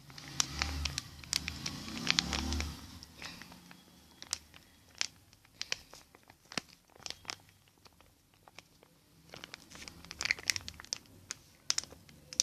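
Scattered sharp clicks and crinkling from a container of glass-cleaning foam being handled and squeezed as the last of it is emptied into a bowl of slime, busiest in the first few seconds.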